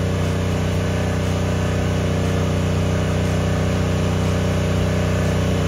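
Small petrol inverter generator running at a steady pitch under a constant electrical load while it charges an electric car.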